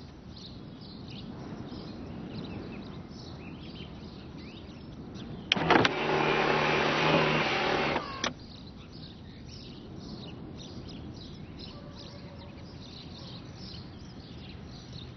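A parked car's electric motor, of the power-window or sunroof kind, runs for about two seconds. A click marks its start and another its stop, over steady outdoor background with small birds chirping throughout.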